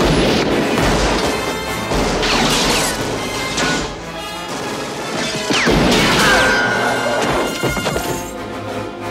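Action-film sound mix: loud crashes and impacts over orchestral music, the crashing easing off near the end while the music carries on.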